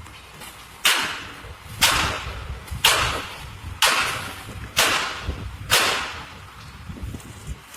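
Concrete pump truck cycling: six sharp hissing strokes about a second apart, each fading quickly.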